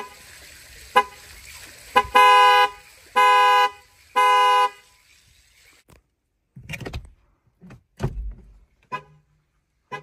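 2023 Chevrolet Malibu's horn sounding as its alarm: a few short blips, then three loud honks of about half a second each, one a second, before it stops. A few irregular knocks and thumps follow.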